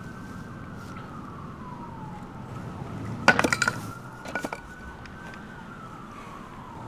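Police siren wailing in a slow fall and rise of pitch. A clatter of sharp knocks comes about three seconds in and a lighter one a second later.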